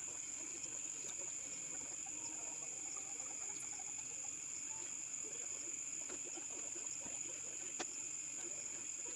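Steady high-pitched chirring of crickets, with a few faint clicks and rustles and one sharper click about eight seconds in.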